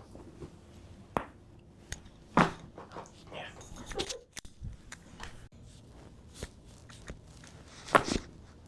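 Neck joints popping during a chiropractic neck adjustment: a few sharp cracks, the loudest near the end.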